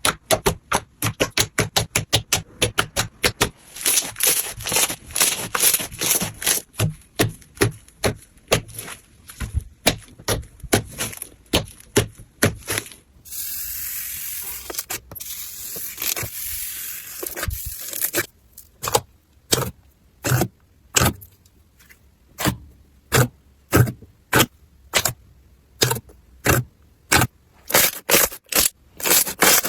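Slime being squeezed and worked, giving a run of sharp crackling clicks, quick at first and slowing to about two a second, with a few seconds of steady hissing scrape in the middle.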